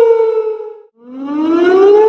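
Tornado warning siren wailing. Its falling pitch fades out just under a second in, then the tone starts again low and climbs.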